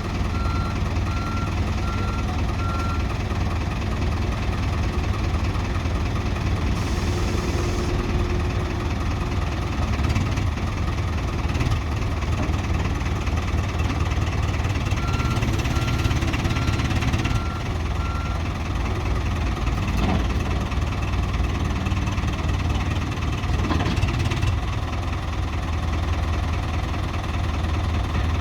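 Diesel engine of a Ford backhoe loader running steadily. Its reversing alarm beeps repeatedly for the first few seconds and again about halfway through.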